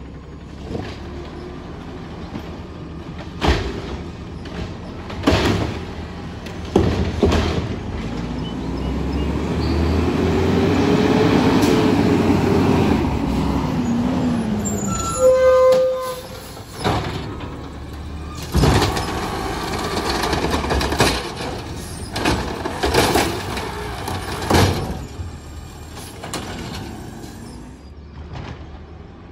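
Garbage truck running at the curb while it empties carts: the engine revs up and then back down, with repeated loud bangs from the carts being dumped, and a short beep about halfway through.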